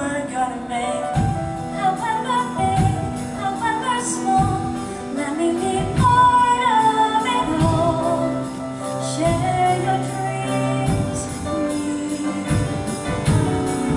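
Show choir number: a female soloist singing into a microphone over instrumental accompaniment.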